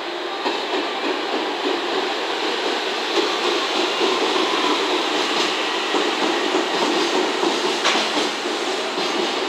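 Container flatcars of a long freight train rolling past over yard tracks and points: a steady rattle of wheels on rail with clacks at the joints, and one sharper clack about eight seconds in.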